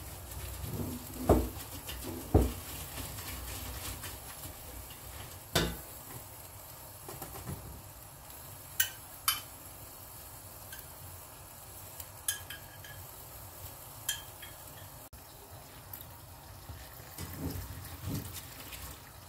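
Spoon stirring a crumbly mixture in an enamel pot, with a few dull knocks against the pot in the first six seconds. In the middle come several sharp clinks of a metal spoon against a glass jar as its contents are spooned into the pot, then soft scraping as stirring resumes near the end.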